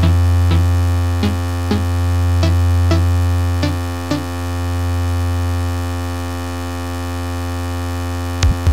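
Synthesized oscilloscope music made in SunVox: a loud low buzzing drone with many steady overtones, with short pitched blips about every half second for the first four seconds, then the drone alone. Quick swooping pitch glides start near the end.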